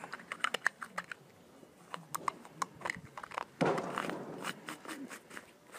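Faint clicks and rubbing of hard plastic as a 3D-printed hand wheel and its retaining piece are handled and pressed onto a PVC cap, with a longer scraping rustle a little past halfway.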